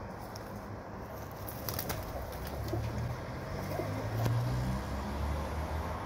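Rock pigeons cooing low and steadily for a couple of seconds in the middle, with a few sharp taps as they peck rice on the window ledge.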